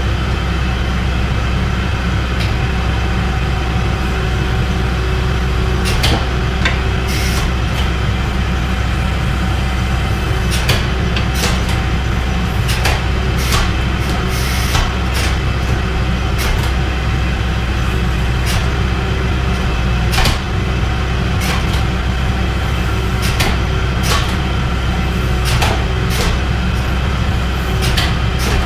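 Hydraulic forging press running: the steady hum of its pump motor, with irregular sharp clicks and clanks scattered through it.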